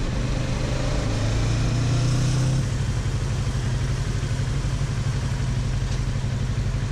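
Kawasaki Versys motorcycle engine running at low road speed, heard from the rider's seat over wind and road noise. The engine note eases off about two and a half seconds in.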